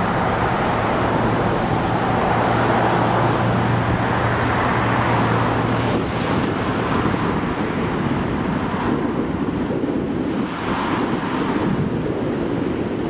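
Traffic noise from passing road vehicles, with a low engine hum that fades out about halfway through, followed by broader swells of noise.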